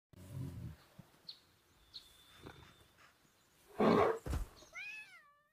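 Animal sounds from Google's 3D AR animals played through a phone: a few soft clicks, a short loud growl about four seconds in, then a cat's meow whose pitch rises and falls near the end.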